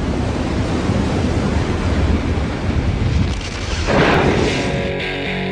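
Heavy surf: a large ocean wave breaking, a deep continuous rumble of water. About four seconds in a brief, brighter rush of spray, then steady music notes begin near the end.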